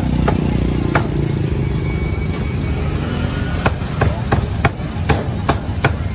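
Cleaver chopping on a wooden chopping block: sharp knocks, two at first, then after a pause a quick run of about seven strokes at roughly three a second. A steady low traffic rumble runs underneath.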